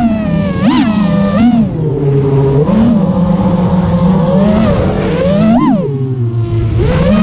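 Eachine 250 Pro racing quadcopter's 2300KV brushless motors whining under constant throttle changes. The pitch jumps up in quick throttle punches, sharply at about three-quarters of a second, one and a half seconds and about five and a half seconds in. It then drops low for a moment and climbs again near the end.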